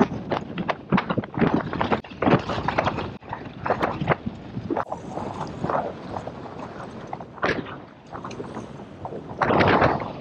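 Choppy sea water sloshing with wind on the microphone, in uneven bursts; near the end a louder splash as a hooked sea trout thrashes at the surface close in.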